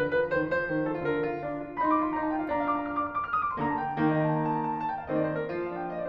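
Background piano music, notes following one another quickly in a steady stream.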